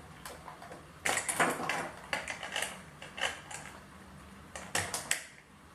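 Clusters of plastic clicks and rattles as a 1/5 scale RC motorbike and its stand are handled and set, in three bursts with short gaps between.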